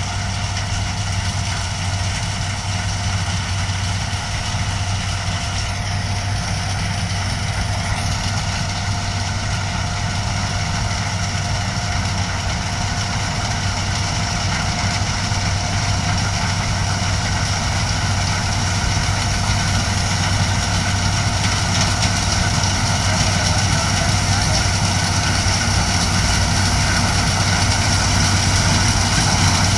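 New Holland TC5 combine harvester running: a steady diesel engine hum with several steady whining tones over it, growing slowly louder.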